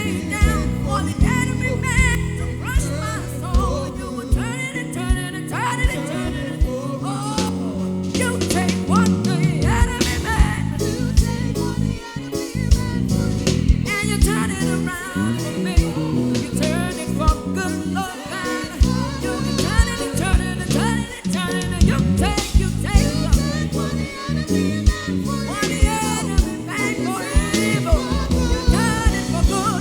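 Live gospel worship band music, with singing over the instruments and a steady drum beat.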